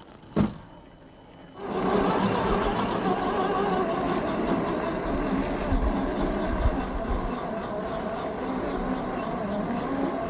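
A single sharp knock, then about a second and a half in a 1/10-scale RC crawler truck starts running abruptly. Its electric motor and drivetrain whine steadily with low bumps from the chassis over rough ground.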